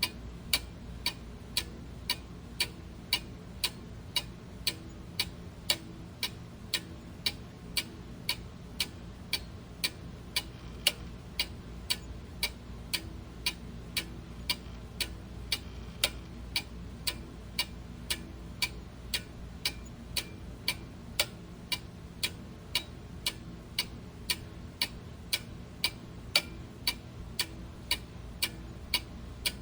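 Clock ticking steadily, about two sharp ticks a second, over a faint low hum.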